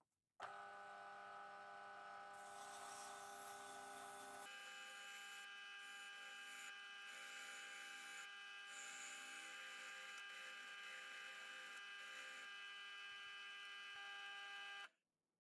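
Bench drill press motor running steadily with a wire cup brush and then an abrasive wheel in its chuck, a steel sickle blade held against it to scrub off rust: a whine with a scratchy hiss over it. The pitch of the whine changes about four seconds in, and the sound stops abruptly near the end.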